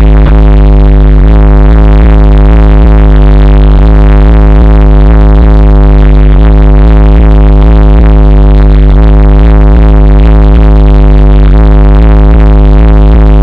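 Bass-heavy music played at full volume through a car audio system with a single B2 Audio HS15 Mk1 15-inch subwoofer, the deep sustained bass dominating.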